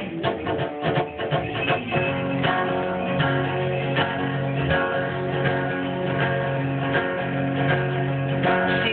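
Acoustic guitar playing the song's intro, picked and strummed chords ringing in a steady rhythm.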